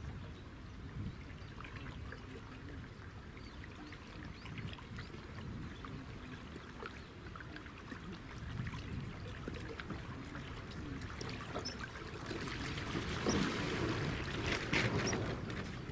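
Water splashing and trickling, with a steady low rumble of wind on the microphone; the splashing grows louder and busier about thirteen seconds in.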